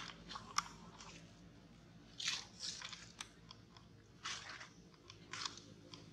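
Footsteps crunching on dry fallen leaves: short, crisp rustling crunches, several of them about a second apart.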